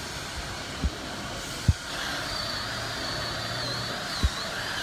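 Power drill running steadily with a thin high whine as it bores old silicone sealant out of a keel-bolt hole in a sailboat's hull, with three short low thumps along the way.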